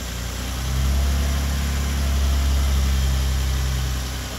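Nissan Maxima's 3.5-litre V6 engine idling steadily under the open hood; the hum swells a little about a second in and eases off near the end.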